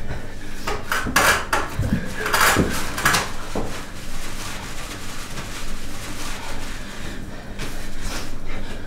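A string of short rustles and knocks as a plaster box and paper tissue are handled on a floor, busiest in the first few seconds, then quieter rustling with a few more near the end.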